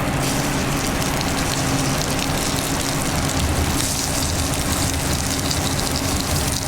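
Seasoned shrimp sizzling in a hot pan, a steady frying hiss over the low hum of kitchen equipment.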